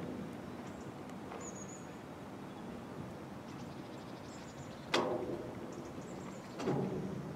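Passenger train running along the line, heard faintly from a distance, with two sudden clanks that ring on briefly, about five and six and a half seconds in. Small birds chirp now and then.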